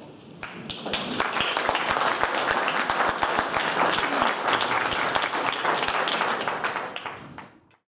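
Audience applauding: a dense patter of many hands clapping that starts about half a second in and quickly builds, holds steady, then fades and cuts off near the end.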